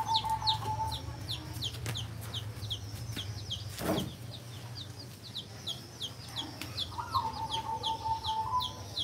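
Baby chicks, dyed pink and teal, peeping: a continuous string of short, high, falling peeps, about three or four a second. Twice a longer, lower held tone sounds, at the start and about seven seconds in, and there is a single thump about four seconds in.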